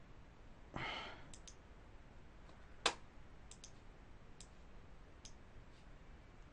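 Computer mouse clicks: a scattered handful of single, sharp clicks, the loudest about three seconds in. A soft breath near the microphone about a second in.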